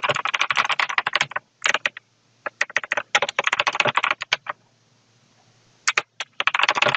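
Typing on a computer keyboard: rapid keystrokes in several bursts, broken by a pause of about a second past the middle.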